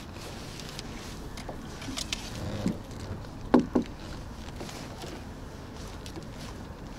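Steady low rumble of wind and water around a small boat, with scattered light clicks and two sharp knocks in quick succession about three and a half seconds in.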